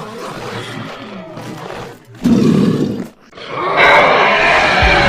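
Monster roar sound effect: a rasping growl, then a short loud snarl about two seconds in, and after a brief pause a long loud roar near the end.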